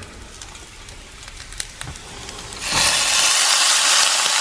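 Steamed broccoli and snap peas tipped into a hot oiled frying pan: after a few faint clicks, a loud sizzle starts suddenly about two and a half seconds in and keeps going as the wet vegetables hit the hot oil.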